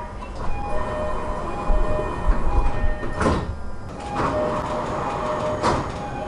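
JR East-style three-tone door chime on a Toei 10-300 series train, one of the odd-sounding variants, sounding its short steady notes as the sliding doors operate. A sharp door knock comes about three seconds in and another near the end.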